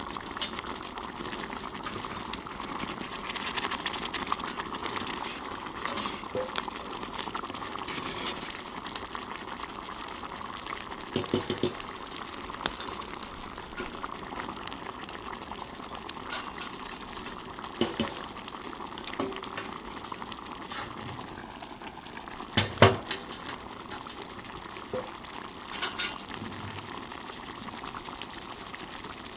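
Stewed hamburg steaks bubbling in sauce in a pan over a wood fire, a steady crackly simmer. A few sharp knocks of metal against the pan break in, the loudest about 23 seconds in.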